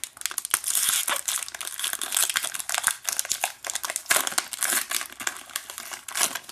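Crinkling and tearing of a hockey card pack's wrapper being peeled open by hand: a dense, continuous run of crackles.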